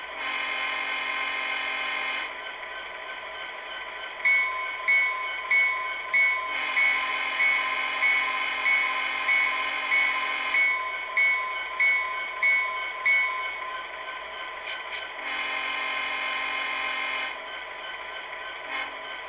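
SoundTraxx Tsunami sound decoder in an HO-scale SD70M model sounding its diesel horn through the model's small speaker, with the equalizer newly set for a clearer sound. It gives three blasts, the middle one about four seconds long and the others about two. Through the middle a bell rings about twice a second over the steady idling engine sound.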